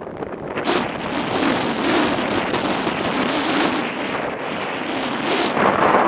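Wind rushing and buffeting over the microphone of a motorcycle-mounted camera while riding at road speed, in gusts, loudest near the end.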